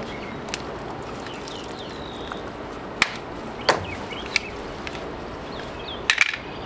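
A handful of sharp clicks and snaps from a PEX pipe cutter working on a water line, the loudest about three seconds in, then a short clatter of knocks about six seconds in as the cutter is set down on concrete.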